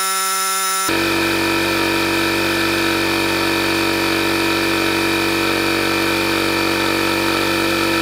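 Vaclife VL738 portable tire inflator's small electric air-compressor pump running steadily as it pumps a car tire up to about 40 PSI. For the first second it is a higher, evenly pitched whine, the same running played back sped up. About a second in it drops to the pump's real-speed steady hum.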